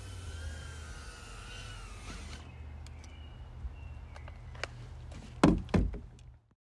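Happymodel Mobula 6 tiny whoop's motors whining with a pitch that wavers up and down, cutting off suddenly about two seconds in. A low hum stays on, with a few sharp clicks and two loud thumps near the end before the sound stops.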